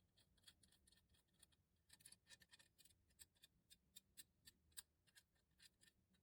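Faint, irregular light clicks and taps, a few a second at times, like small hard objects being handled.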